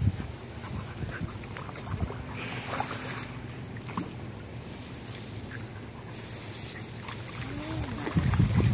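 A hooked tarpon splashing and thrashing in the water at the surface, with scattered small splashes, then loud heavy splashing near the end.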